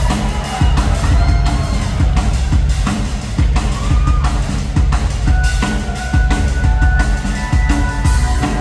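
Live band music: a drum kit keeping a steady beat over a heavy bass line, with a few crowd whoops in the first seconds. A held high note comes in about halfway, and more pitched parts join near the end.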